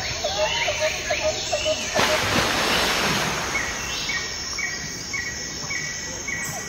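Outdoor park ambience with birds calling: a quick run of short, evenly repeated chirps, then from about two seconds in a louder rushing hiss and a new series of higher, evenly spaced chirps.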